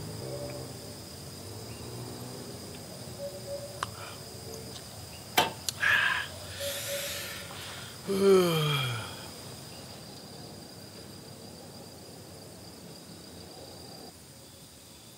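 A man lets out a long sigh as he stretches about eight seconds in, falling in pitch over about a second; it is the loudest sound here. A sharp click and a brief clatter come a little before it, over a steady high drone of forest insects.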